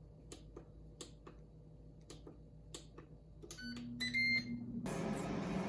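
Air fryer being started: a few light clicks, then a short run of electronic beeps from its control panel, and about five seconds in its fan starts with a steady whoosh.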